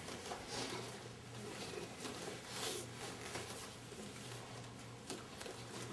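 Quiet room tone: a low steady hum under faint rustling, shuffling and soft knocks from a group of people standing and shifting about.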